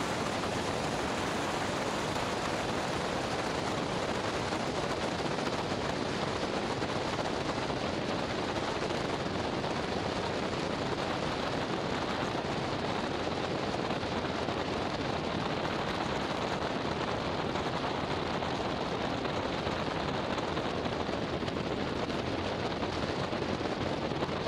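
Cessna 205 rolling along the runway, heard from a camera under its belly: a steady, even rush of airflow and engine noise with no clear engine note, mostly wind on the microphone.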